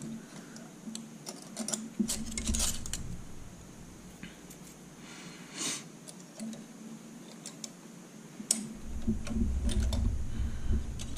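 Steel feeler gauge blades clicking and jingling against each other and against the camshaft as a blade is worked into the gap between a cam lobe and a lifter bucket to check valve lash. Scattered light metallic ticks, with dull handling bumps about two seconds in and again near the end.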